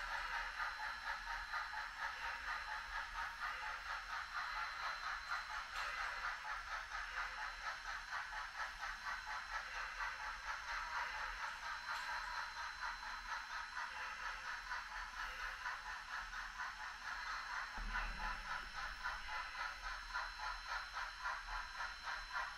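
HOn3 model steam train running along the track: a steady rattling clatter of the locomotive and cars, pulsing quickly and evenly.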